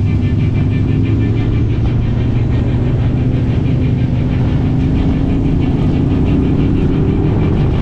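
A motor vehicle's engine running steadily: a constant low drone with a fast, regular ticking over it.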